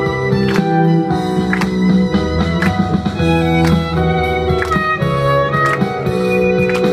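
Violin and contrabass duo playing a pop-classical tune: a violin melody of held, wavering notes over a bass line, with a sharp beat about once a second.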